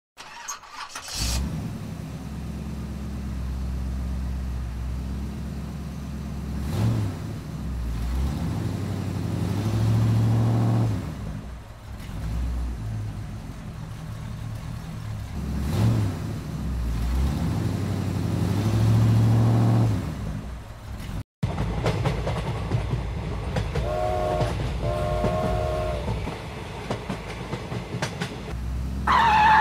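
Toy tractor running, a steady low motor hum that swells and fades several times. After a cut, a toy battery-powered train runs on its track, sounding two short toots and then a brief high whistle near the end.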